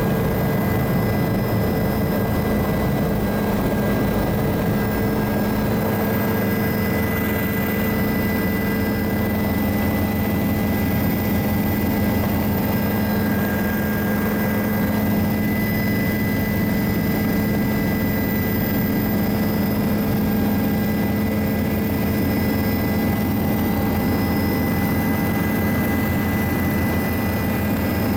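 Helicopter in flight, heard from inside the cabin: a loud, steady engine and rotor noise with a fast low blade beat and a steady whine.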